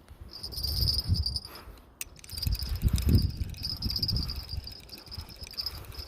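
Night insects chirring steadily in a high, fast-pulsing trill. Irregular low rumbles and thumps on the microphone are louder, and the sound cuts out briefly about two seconds in.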